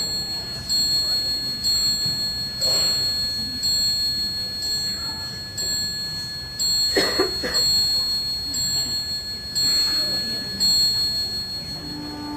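A clock chime striking over and over, about a dozen even strokes roughly one a second, with a high bell-like ring between them.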